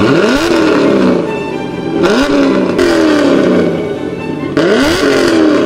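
Chevrolet Camaro engine revving three times, each rev climbing quickly and then falling back slowly, with exhaust noise throughout.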